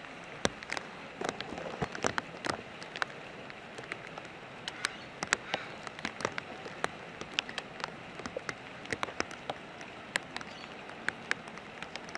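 Rain falling steadily, a soft hiss with many irregular sharp drop taps.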